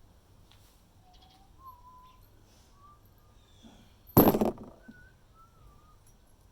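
Soft human whistling, a few slow drawn-out notes wandering up and down, broken by a sudden loud clatter of something hard a little over four seconds in.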